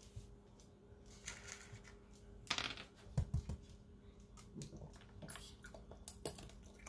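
Raccoon eating almonds off a tile floor: scattered crunches and light clicks. There is a louder rough burst about two and a half seconds in, then a few low thuds, all over a steady low hum.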